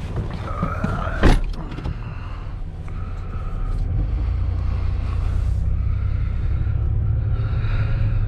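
A single loud thump about a second in, then a vehicle's engine and road rumble, steady and growing heavier as it drives off.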